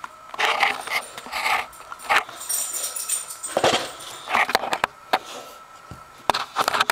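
Dogs waiting to be fed, making short vocal sounds again and again, mixed with knocks and rustling from the camera being handled and set down close to the microphone.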